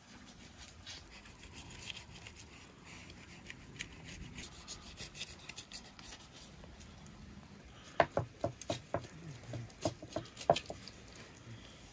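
Knife slicing between the skin and the flesh of a large grass carp on a wooden cutting board, a soft rasping scrape. About eight seconds in comes a quick run of sharp clicks and knocks lasting a couple of seconds.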